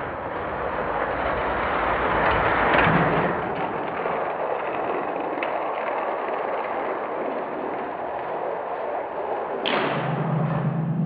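Die-cast toy cars rolling down an orange plastic Hot Wheels track, a continuous rushing, rumbling noise that swells early on. Near the end a sharp click gives way to a steady low hum.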